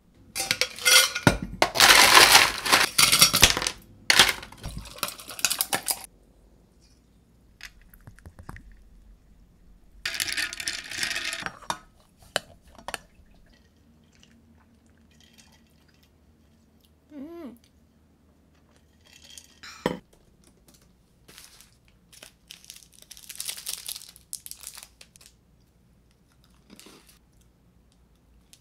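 Handling sounds at a desk: loud crinkling and rustling of packaging over the first several seconds and again around ten seconds in, and a sharp knock of something set down just before twenty seconds. Near the end comes a softer rustle of an individually wrapped Lotus biscuit's plastic wrapper being opened.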